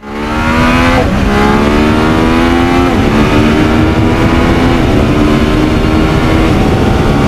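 Motorcycle engine accelerating hard through the gears. The pitch climbs in each gear and drops sharply at each upshift, several times.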